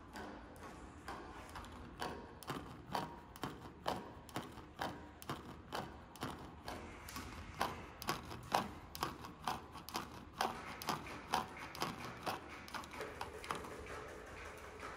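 Paper-topped steel sculpture tables shaken by a heartbeat sound score, their abaca-paper tops tapping and rattling in an uneven run of soft ticks, about two a second. A faint steady tone comes in near the end.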